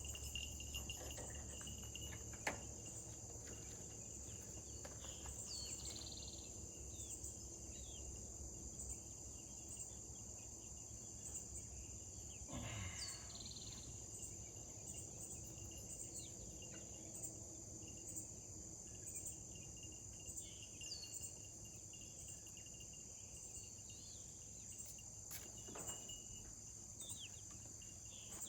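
Steady high-pitched insect chorus, with a few short chirps and a couple of faint knocks now and then.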